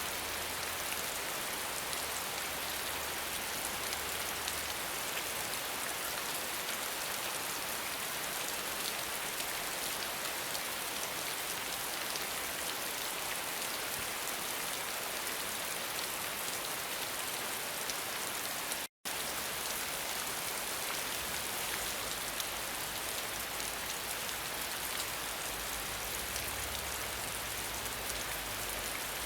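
Steady, dense rain falling, an even hiss of many drops. It cuts out to silence for a split second about two-thirds of the way through, then resumes unchanged.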